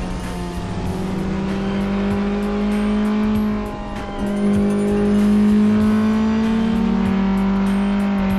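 KTM 690 Duke's single-cylinder four-stroke engine pulling at steady revs on the move. The throttle is briefly rolled off about four seconds in, then opened again, and the revs drop near the end.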